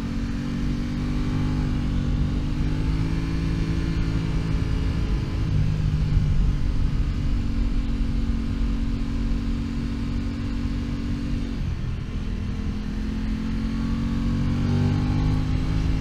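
Aprilia RS660's parallel-twin engine running under way, its pitch shifting a few times, falling off about twelve seconds in and then rising steadily toward the end as it pulls again.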